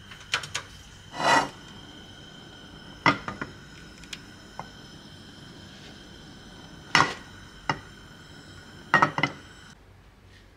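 Nonstick frying pan knocking and clattering against the stovetop as it is lifted and tilted to swirl the oil: several short sharp clanks in small groups. A faint steady high hum runs beneath and stops near the end.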